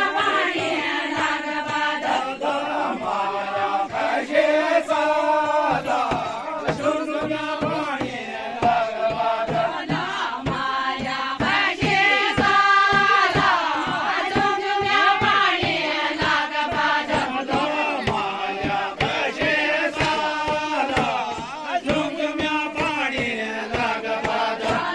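A group of villagers singing a chanchari folk song together in phrases, with a steady beat underneath.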